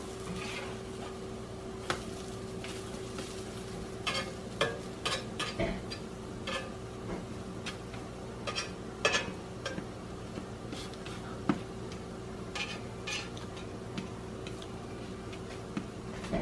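A spatula scraping and tapping against a frying pan in irregular short clicks while food sizzles, over a steady low hum.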